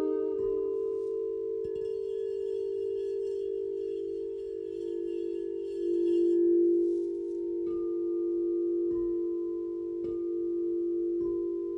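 Sound-healing instrumental music: a steady, low sustained ringing tone that swells about six seconds in. A high shimmer sounds over it in the first half, and in the second half soft strikes bring in higher ringing notes four times.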